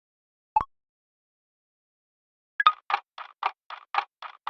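Quiz countdown-timer sound effect: a single short pop about half a second in, then clock-like ticking from about two and a half seconds in, about four ticks a second.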